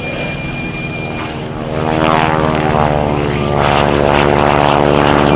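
Radial engine and propeller of a Boeing Stearman biplane running steadily in a low, close pass, growing louder about two seconds in.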